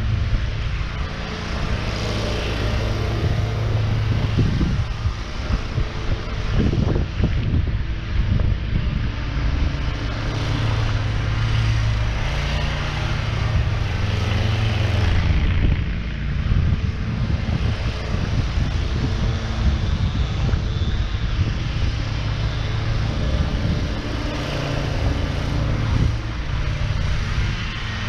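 Zero-turn mower engine running steadily under load, with wind buffeting the microphone.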